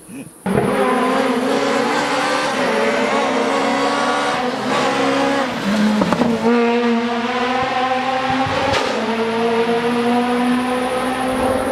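Rally car engine at full throttle, revving up and down through gear changes as the car comes through the stage. It starts suddenly about half a second in, and sharp bangs from the car sound twice, about six and nine seconds in.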